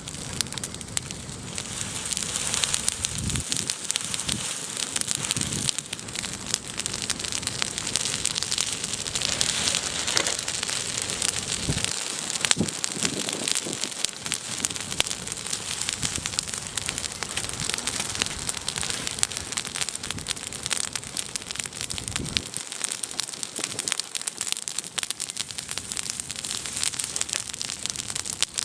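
Cooking fire crackling steadily, a dense run of small irregular pops over a hiss.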